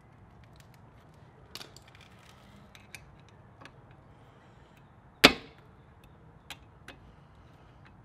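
Small metallic clicks and taps of a hex key and fingers working on a motorcycle's rear brake caliper, with one sharp, much louder click about five seconds in.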